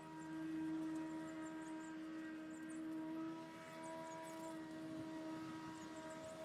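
A steady mechanical hum holding several even pitches, with faint short high chirps over it.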